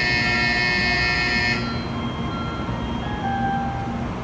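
Electric departure bell ringing on a Shinkansen platform, a steady high ringing that cuts off suddenly about one and a half seconds in. Beneath it and after it comes the low hum of the train standing at the platform.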